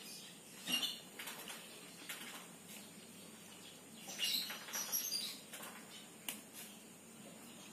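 Cat eating from a plate: irregular short wet chewing and smacking clicks, with a busier cluster about four to five seconds in.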